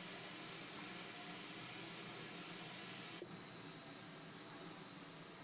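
Rasgulla cooking in sugar syrup at a hard, frothing boil in an aluminium pan on a gas stove, a steady hiss. About three seconds in the hiss drops suddenly to a quieter level.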